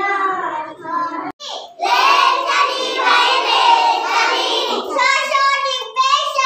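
Children singing a Hindi devotional song (bhajan) in young, high voices. The singing breaks off briefly about a second in, then comes back louder and fuller.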